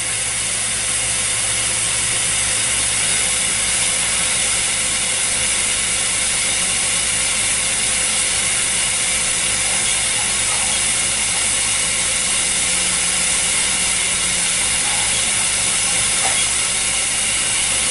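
Steady hissing flame of a glassworking torch, with the SincTech ADV-2A glass lathe running underneath as it puts a reverse twist into the molten glass tubes.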